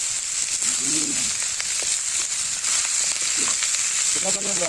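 Sliced onions and whole spices sizzling in hot oil in a kadhai, with a steady hiss and light scraping clicks as a spatula stirs them.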